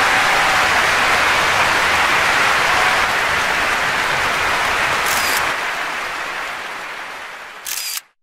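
Concert-hall audience applauding steadily after a violin concerto, fading near the end and then cutting off abruptly.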